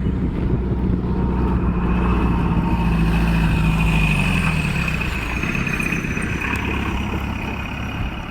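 A motor engine running steadily with a low hum that fades about five seconds in, with a faint high whine sliding slowly down in pitch.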